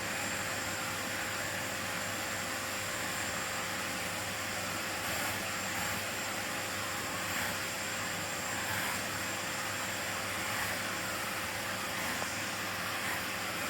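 Miele vacuum cleaner running steadily: a constant rush of air with a steady motor whine and only slight swells in level.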